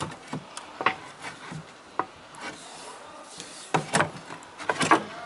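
Wooden pallet boards being pried apart with a metal bar: irregular creaks and cracks of the wood under leverage, with a burst of louder cracking near the end.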